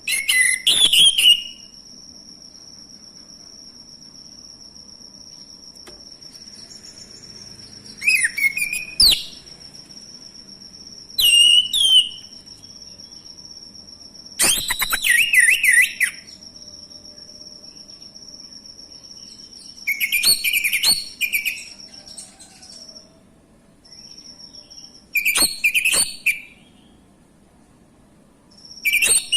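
Male orange-headed thrush singing: about seven short, loud phrases of varied whistled notes, a few seconds apart. A steady, thin high-pitched tone runs behind them and drops out briefly near the end.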